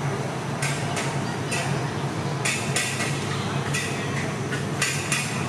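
A metal ladle and spatula scrape and clank against a wok as noodles are stir-fried, about ten short strokes in uneven rhythm. Under them run a steady sizzle and a low hum.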